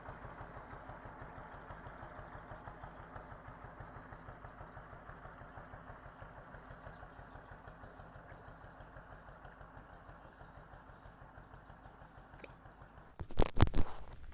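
Motorboat engine running with a steady, rapid beat that slowly fades. Near the end comes a brief, loud clatter of sharp knocks.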